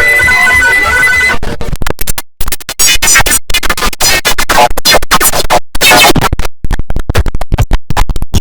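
The IBM OS/2 Warp 3 shutdown sound, heavily processed with stacked effects. A sustained layered tone lasts about a second and a half, then breaks into rapidly chopped, stuttering fragments with abrupt cuts and short pitch sweeps.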